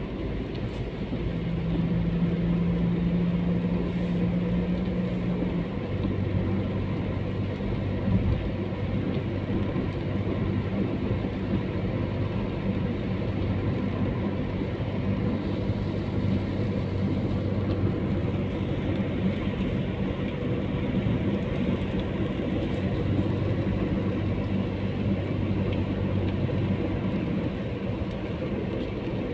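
Car travelling on a wet road, heard from inside the cabin: a steady hum of engine and tyre noise with a low drone. The engine note drops about six seconds in and then runs on steadily.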